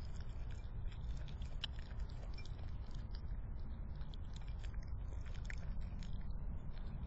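A raccoon chewing and crunching chicken scraps from a ceramic bowl, a run of small irregular clicks, over a steady low hum.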